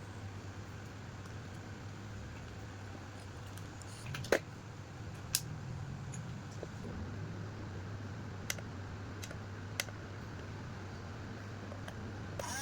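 Remote-control toy bulldozer running with a steady low hum, and a few sharp plastic clicks at irregular times.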